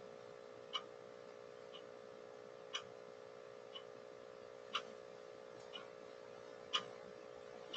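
Faint ticking of a clock, one tick a second with every other tick softer, over a steady electrical hum.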